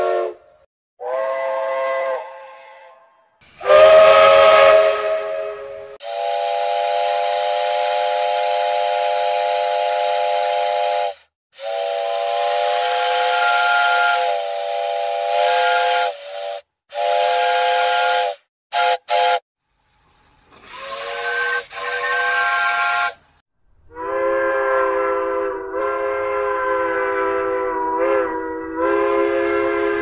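A series of different steam locomotive whistles, one after another. Each sounds a chord of several steady notes, in blasts from two quick toots to a long blast of about five seconds. The last whistle, starting near the end, is lower-pitched and has a low rumble under it.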